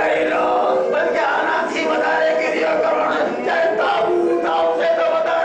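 A group of voices chanting together in unison, with long held notes.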